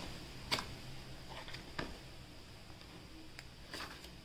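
Cardboard packaging and a paper leaflet being handled: a few light, sharp clicks and taps spread over several seconds.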